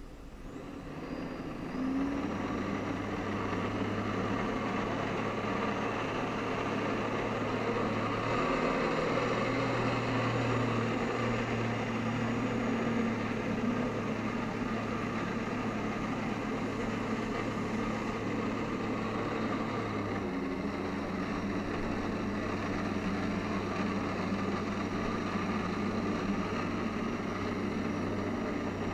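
Jet ski engine throttled up about two seconds in, then held at a steady high running speed under load as it pumps water up the hose to the flyboard, with small shifts in pitch along the way.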